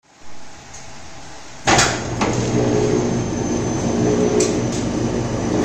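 Electric guy-rod bending machine: a loud clunk about a third of the way in as it starts, then its motor and gearbox running with a steady hum while the turntable bends a steel rod, and another clunk at the very end.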